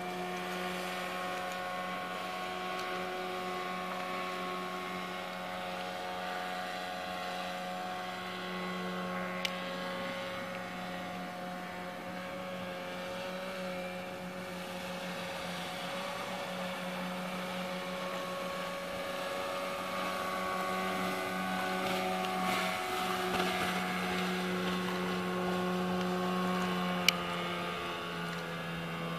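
A 2001 Johnson 9.9 hp tiller outboard motor running at a steady high speed with the boat on the plane. Its even tone grows louder in the second half as the boat comes closer, with two brief sharp clicks, one about nine seconds in and one near the end.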